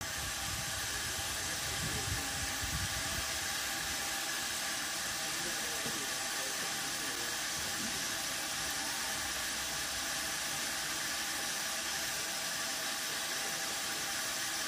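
GWR Modified Hall steam locomotive 7903 Foremarke Hall standing with steam escaping, a steady, even hiss.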